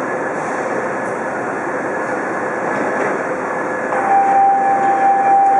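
Washington Metro subway train standing at an underground platform: a steady noisy hum of the train and station, with a clear steady tone that starts about four seconds in as the sound grows a little louder.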